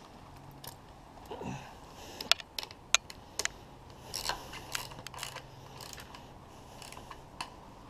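Ratchet wrench clicking in short, irregular strokes, about two to three clicks a second, while tightening a bolt on an outboard motor's lower unit housing.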